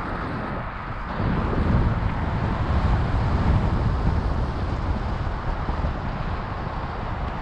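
Wind rushing over the camera microphone of a paraglider in flight: a steady, buffeting noise, heaviest in the low end.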